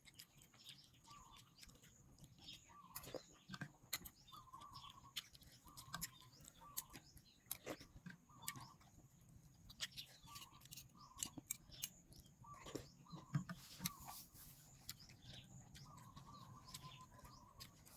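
Near silence with faint short bird chirps repeating every second or so, and scattered faint small clicks.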